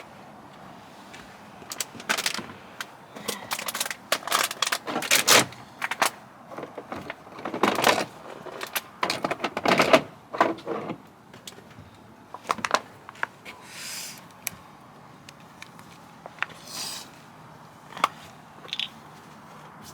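Things being handled and moved about: irregular knocks, clicks and rustles, busiest in the first half, then a few isolated sharp clicks.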